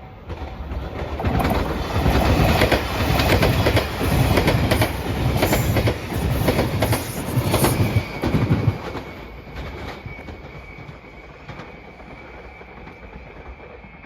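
Electric limited express train passing close by at speed, its wheels clacking in quick rhythm over the rail joints. It comes up loud about a second in, runs for about seven seconds and dies away near the middle.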